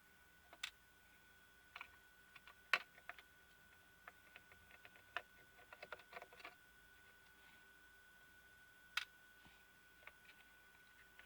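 Scattered light clicks and taps of small hand tools and plastic parts being handled while screws are taken out of a small projector's circuit board, a few at a time with pauses between, over a faint steady high whine.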